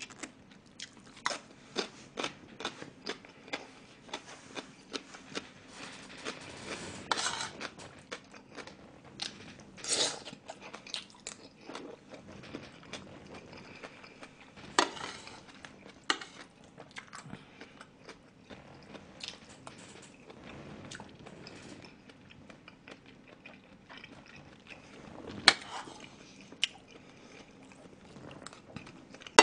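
Close-miked chewing of spoonfuls of fried rice and seafood rice: irregular wet mouth clicks and smacks, with a few louder sharp clicks now and then.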